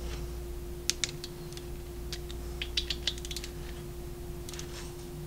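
Irregular light metallic clicks and ticks of hand tools and bolts being handled at the cam plate of a motorcycle engine, with a short run of clicks around the middle, over a steady hum.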